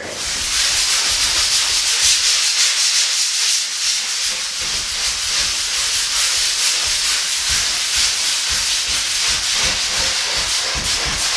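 Coarse 80-grit sandpaper rubbed by hand over the painted gray top of a wooden dresser, a steady hiss of sanding strokes. This is the first coarse pass to rough up the old paint.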